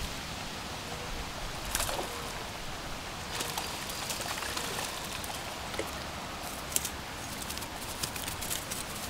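Light water splashing from a hooked trout being brought in at the pond's edge, with scattered clicks and rustles throughout.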